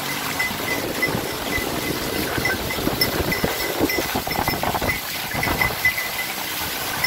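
Horse-drawn cart moving through shallow surf: the horse's hooves clopping and splashing and the cart knocking and rattling over a steady wash of noise, with a light high tinkle repeating along with it.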